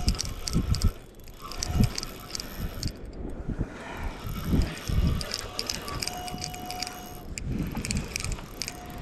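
A fishing reel being cranked to bring in a hooked fish, ticking in quick runs of clicks, with rustling and bumping from hands on the rod.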